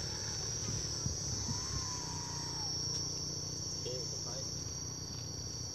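Steady, shrill chorus of insects buzzing without a break, with a faint tone that rises and falls twice underneath.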